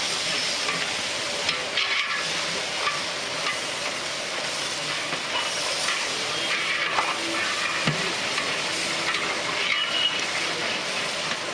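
Onions, green chillies and ginger-garlic paste sizzling steadily in hot oil while being stirred in the pan, with a few faint scrapes. The stirring keeps the mixture from sticking to the bottom.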